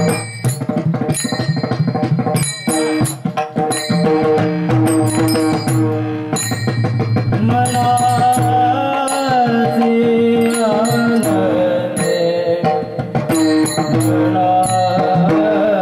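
Warkari bhajan accompaniment: a pakhawaj barrel drum played with regular strokes and small hand cymbals (taal) clashing in rhythm over steady held notes. About halfway through, a man's voice comes in singing the melody.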